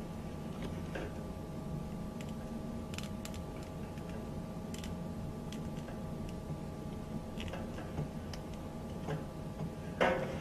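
Scattered light clicks and taps of a plastic water trap and tubing being handled and fitted, with one louder click near the end, over a steady low hum.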